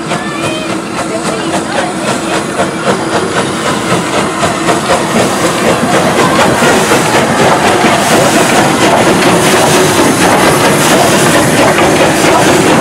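Three-cylinder Southern Railway West Country class steam locomotive 34053 Sir Keith Park approaching and passing close by under steam, its exhaust hissing. The sound grows steadily louder as it draws near.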